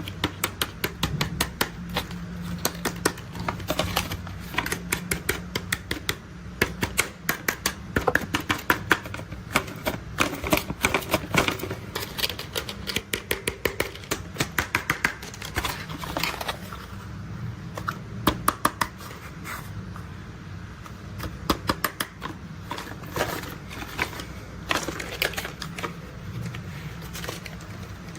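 Plastic toy construction vehicles being handled and played with: a stream of sharp plastic clicks and clatters, often in quick runs of several a second, over a steady low hum.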